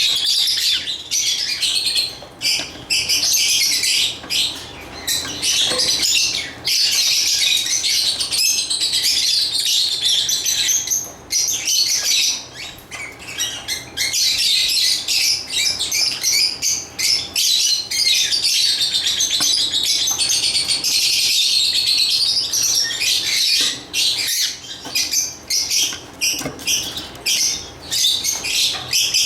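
Lovebirds chirping continuously, a dense stream of rapid high-pitched chirps and chatter with a few short lulls.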